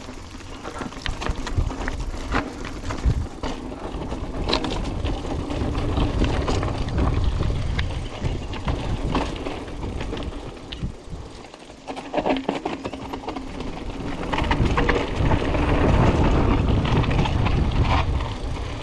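Silverback Stride SX 29 hardtail mountain bike ridden over a rough trail: wind rushing over the microphone with many sharp clicks and knocks of the bike rattling over the ground. It grows louder in the middle and again near the end.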